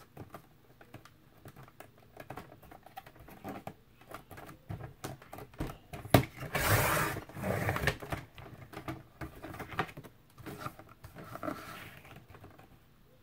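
Cereal-box cardboard being shifted and lined up on a plastic sliding paper trimmer, with scattered small clicks and taps. A sharp click about six seconds in is followed by a scraping swish lasting about a second, and shorter swishes come a little later and near the end.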